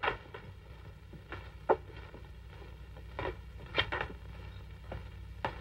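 Footsteps: about eight uneven steps as men walk across the floor, over the steady low hum of an old film soundtrack.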